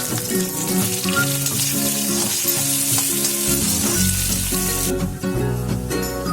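Food frying in a hot pan, a steady sizzle that drops away about five seconds in, over background music.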